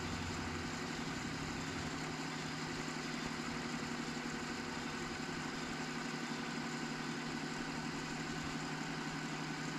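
Vintage Alpine pull-out cassette deck winding a tape in fast-forward music search, looking for the silence before the next song: a steady, unchanging hum.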